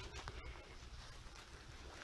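Faint steady hiss of rain falling through the forest, with a low rumble of wind on the microphone.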